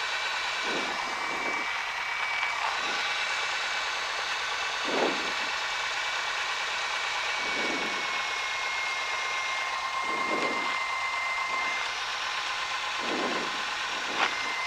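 Cessna 172's engine and propeller running at low taxi power, heard from inside the cockpit as a steady drone with a faint, thin high whine over it.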